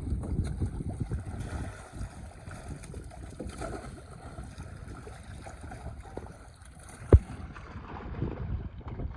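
Wind buffeting the microphone over water sounds at a pond, with one sharp thump about seven seconds in.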